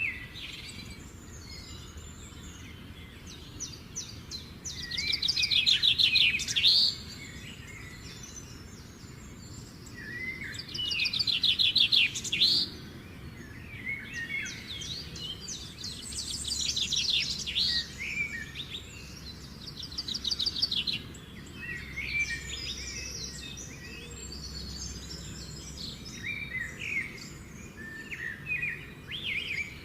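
Several songbirds chirping and singing, with rapid trills that come and go, loudest in three runs about a third, halfway and two thirds of the way through.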